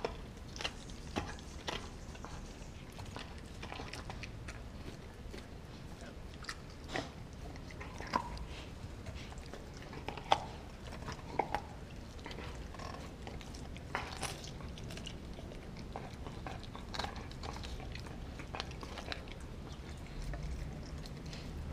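A pitbull–German shepherd mix gnawing a frozen raw pig's foot: irregular crunching and cracking bites on hard frozen bone and skin. A few sharper cracks stand out, the loudest about ten seconds in.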